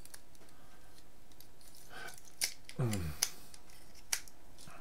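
A few sharp, separate clicks of hard plastic as a vintage Transformers Triple Changer figure is handled and its parts moved, with a brief low murmur of the voice in between.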